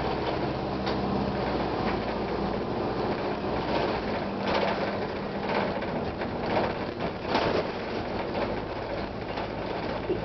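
Transit bus riding, heard from inside: the diesel engine drones steadily, its low note changing about four seconds in, and the body and interior fittings rattle and clatter irregularly from then on.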